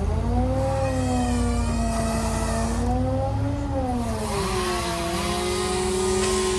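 Gasoline chainsaw engine revving up and down under the throttle. It climbs sharply at the start, rises again about three and a half seconds in, then settles to a lower, steadier pitch.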